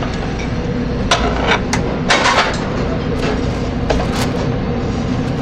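Commercial kitchen noise: a steady background din with a run of sharp metal and crockery clanks and clatters from pans and utensils being handled, busiest about two seconds in.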